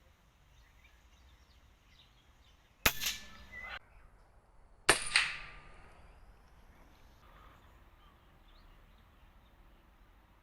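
Two sharp air rifle shots about two seconds apart, each followed by a brief tail, with birds chirping faintly between and after.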